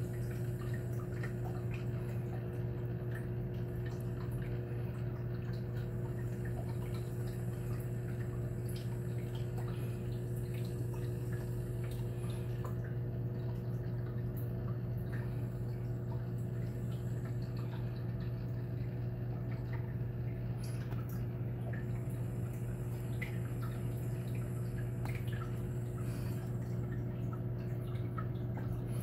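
Steady hum of reef aquarium pumps running, with faint scattered drips and trickles of water.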